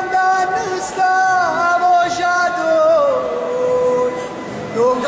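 A single voice singing a drawn-out devotional lament, holding long notes that slide down in pitch twice, with a brief break and an upward slide near the end.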